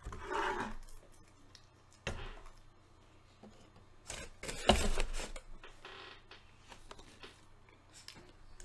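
Chewing and mouth noises from a bite of food, then rustling and sharp knocks as a paper plate and fork are moved off a tabletop. The knocks are loudest about four to five seconds in.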